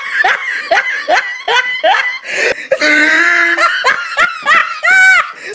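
High-pitched laughter in quick repeated bursts, several a second, with a few longer held whoops.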